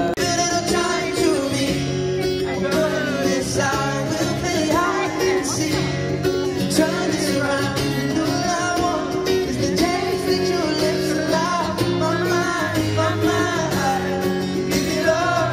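Live stadium concert music over the PA: a male singer with guitar, with fans nearby singing along.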